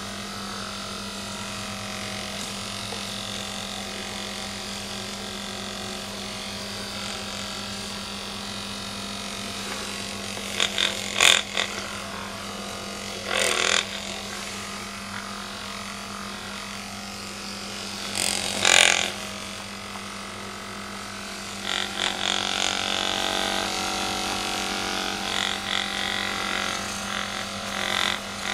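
Handheld Norstar Magnessage magnetic massager running, its small motor humming steadily as it is pressed against a cat's fur, with a few brief louder rubbing or knocking noises about a third and two-thirds of the way through.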